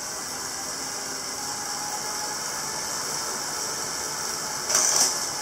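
CycleOps Supermagneto Pro magnetic bike trainer running with a steady whir and hiss, not yet making the grinding noise. A brief louder burst comes near the end.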